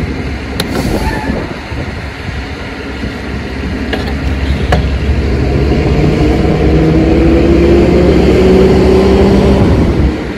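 A passing motor vehicle close by, its engine note rising slowly in pitch and growing louder over several seconds, then stopping abruptly near the end. Before it come a few sharp knocks from tapping on the wheel rim to free a stuck wheel whose lug nuts are already off.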